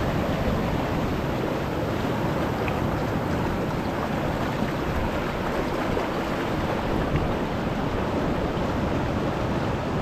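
Steady rush of surf breaking and washing over the shallows, with wind buffeting the microphone.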